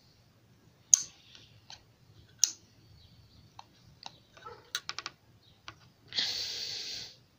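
Pocketknife blades snapping on the backspring of a small stockman knife: a sharp click about a second in, another about two and a half seconds in, and a quick run of clicks near five seconds. A brief hiss follows near the end.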